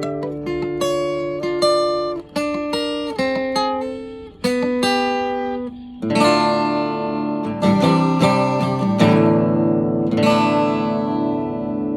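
Acoustic guitar being played: single picked notes in a melody, then fuller strummed chords from about halfway, the last chord left ringing and fading near the end.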